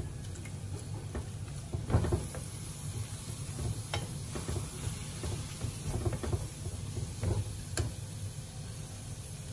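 Minced pork dry-frying in a nonstick frying pan, faintly sizzling as it is stirred and broken up with a silicone spatula, with scattered scrapes and taps of the spatula on the pan, the loudest about two seconds in. A low steady hum runs underneath.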